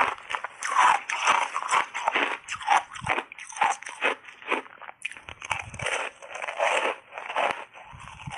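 Close-miked crunching of refrozen ice chunks coated in matcha and milk powder, bitten and chewed in the mouth: a rapid run of crisp crunches with a brief pause about five seconds in.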